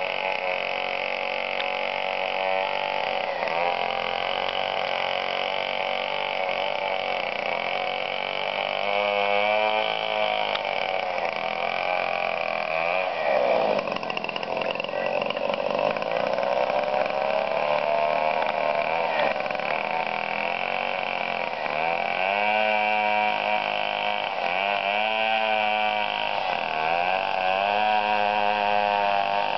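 Chainsaw running under load, its pitch sagging and climbing again over and over as it cuts. It bogs down deepest about 13 seconds in, then revs up repeatedly in the last third.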